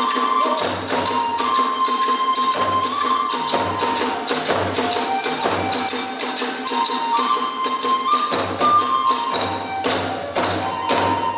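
Hiroshima kagura hayashi music: a bamboo flute playing a held, stepping melody over fast, dense strikes of drums and small hand cymbals, with a deeper drum beating in groups. The playing stops at the very end, leaving the cymbals ringing.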